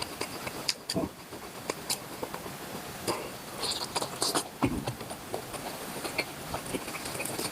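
Close-up eating sounds of a person chewing cooked octopus: irregular wet smacks and clicks, with a few louder squelches.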